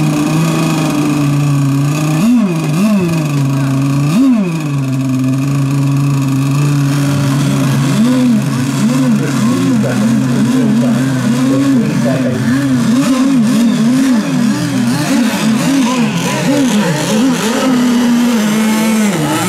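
Engines of several RC racing boats running on the water. A steady drone is overlaid, from about eight seconds in, by many quick rising-and-falling pitch sweeps as boats rev up and pass.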